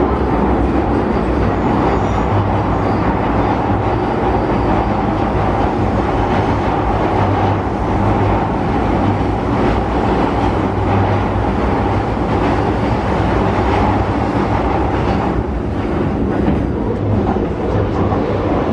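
London Underground Northern line 1995 Tube Stock train running at speed through a tunnel, heard from inside the carriage: a loud, steady rumble and roar of wheels on rail.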